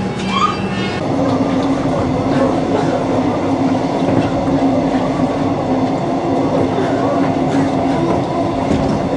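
Passenger train in motion: a steady rumble with a constant hum that steps slightly higher in pitch about a second in.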